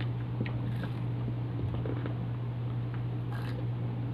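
A steady low hum, with a few faint clicks near the start and a short rustle a little after three seconds in, from people eating corn on the cob by hand.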